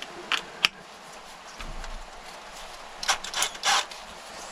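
Handling clicks and scrapes as a backing-pad adapter is fitted into a cordless drill's chuck: two sharp clicks near the start, a dull knock, then a quick cluster of four or five clicks about three seconds in. The drill motor is not running.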